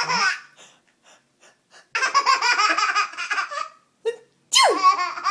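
A baby laughing hard: a sudden burst, a string of short breathy gasps, then a long laugh, and a fresh outburst near the end.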